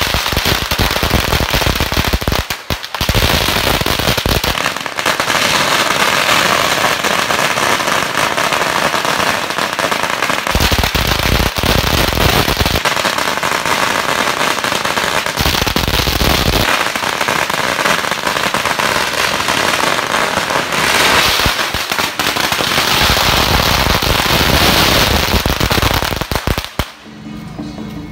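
Strings of firecrackers going off in a continuous dense crackle of rapid pops, with short lulls about three seconds in and near the end.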